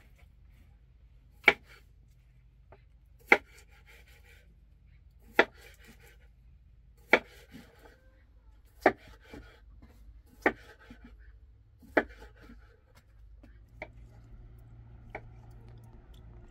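A large knife slicing raw potatoes on a wooden cutting board, each stroke ending in a sharp knock of the blade on the board, seven strokes about every second and a half to two seconds, then two fainter ones near the end.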